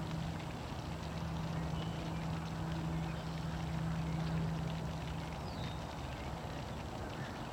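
A motor running with a steady low hum that fades out about two-thirds of the way through, over a steady background hiss.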